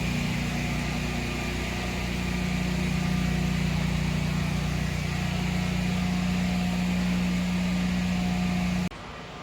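Steady low drone of a car interior on the move, engine hum and road noise, dropping abruptly to a quieter drone near the end.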